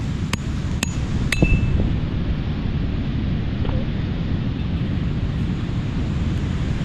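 Machete chopping into a fish on the sand: three sharp strikes about half a second apart in the first second and a half. Under it runs a steady low wind-and-surf rumble on the microphone.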